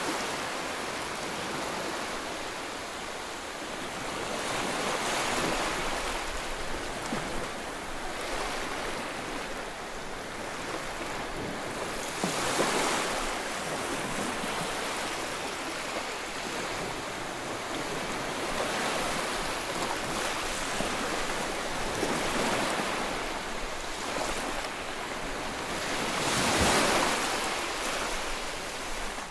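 Gentle sea waves washing at the shore, with wind on the microphone: a steady rush that swells every few seconds, loudest near the end.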